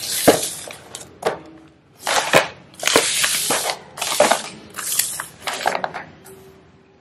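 Grocery packaging of paper and plastic packets crinkling and rustling as it is handled, in repeated short bursts.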